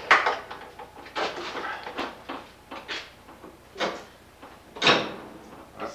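A handful of sharp knocks and clunks inside a wooden streetcar, spread unevenly: the loudest at the very start, then others about three, four and five seconds in. Faint voices can be heard between them.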